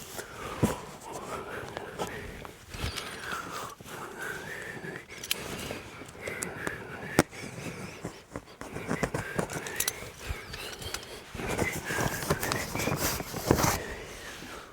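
Heavy, wheezy breathing of a man working, with scattered clicks and knocks from handling tools and materials.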